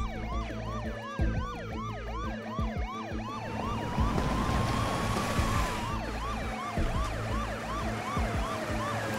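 Two police car sirens sounding at once: one in a fast yelp, about three to four quick rising sweeps a second, the other in a slow wail that rises and falls every few seconds.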